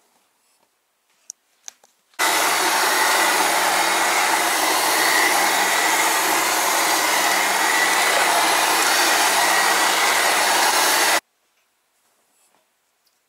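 Siemens electric hand mixer running at one steady speed for about nine seconds, its beaters working flour into sourdough dough in a glass bowl. It starts about two seconds in and cuts off abruptly near the end, after a few light clicks.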